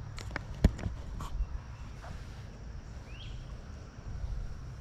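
Several sharp clicks in the first second and a half over a steady low rumble, with one short rising bird call about three seconds in.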